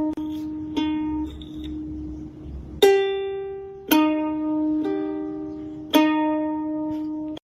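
Background music of slow, single plucked string notes, each ringing out before the next. It cuts off abruptly shortly before the end.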